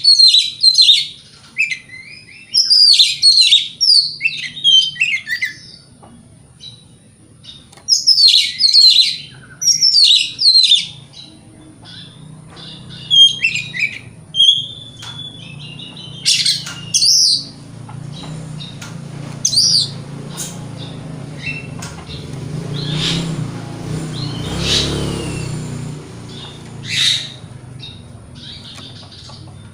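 Oriental magpie-robin (kacer) singing loud bursts of fast, varied whistled phrases, several seconds apart, with single sharp notes between them later on. About three quarters of the way through, a low rumble swells and fades beneath the song.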